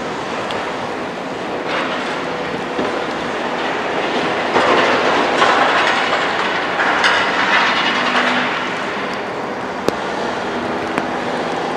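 Caterpillar 374F hydraulic excavator working at a demolition site: steady heavy machine noise with metallic clatter, swelling for a few seconds about halfway through, and two sharp knocks near the end.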